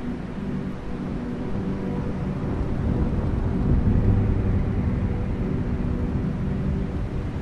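Ambient drone music: a low, noisy rumble with a few faint held tones above it. It swells to its loudest about halfway through, then eases back.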